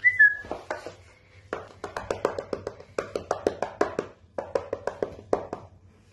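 A Rottweiler puppy's claws clicking rapidly on a hard tiled floor in quick runs as it moves about. A short, high, falling squeak comes right at the start and is the loudest sound.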